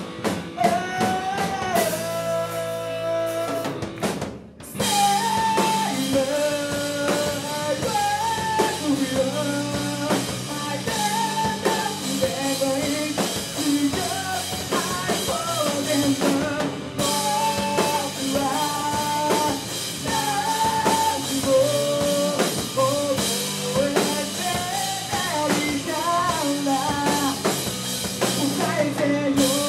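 Live rock band playing with drum kit, electric guitars and bass, a high melody line of held, bending notes on top. About four seconds in the band cuts out for a moment, then comes back in at full strength.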